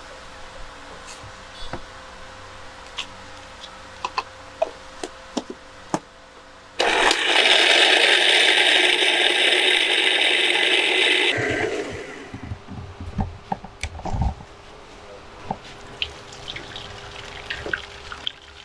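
Electric blender starts abruptly and runs steadily for about four and a half seconds, puréeing phalsa berries with water, then winds down. Small clicks and knocks from handling the jar come before and after.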